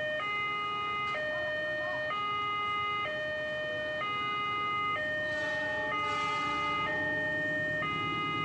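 Railway level-crossing warning alarm sounding its electronic two-tone chime, switching between a higher and a lower tone about once a second. A low rumble builds underneath in the second half.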